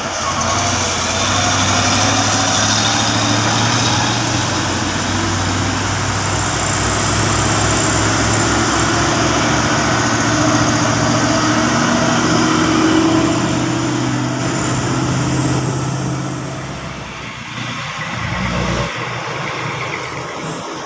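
Heavily loaded diesel cargo trucks passing close by, their engines pulling under load with a steady low drone that eases off near the end.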